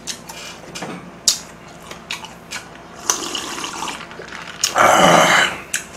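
A man drinking an iced drink from a glass: scattered clinks of ice against the glass and the sound of liquid being drunk, with a loud breathy swell near the end.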